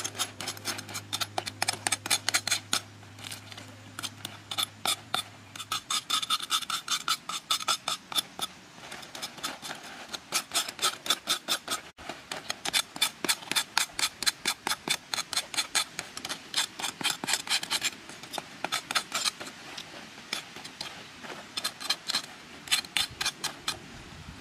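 Large knife cutting and chopping through crisp roasted chicken: a run of sharp crunchy clicks and knocks, about four a second, coming in bursts with short pauses.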